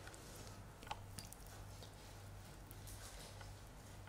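Near silence: a low steady room hum with a few faint clicks and soft sticky handling noises as almonds are picked from a bowl with egg-white-wet fingers.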